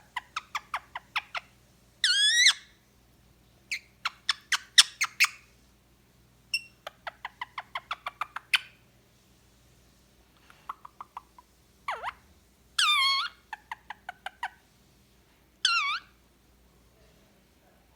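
Male green pied Indian ringneck parrot making runs of quick clicking noises, broken by a few loud, short calls that warble up and down in pitch.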